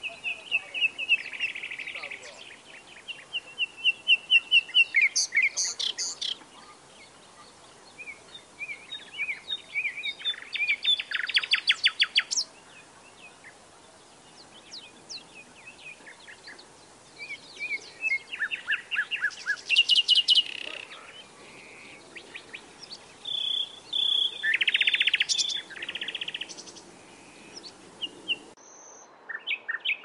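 A songbird singing a varied song in separate phrases: fast runs of repeated notes, rapid trills and short whistled notes, with pauses of a second or two between phrases.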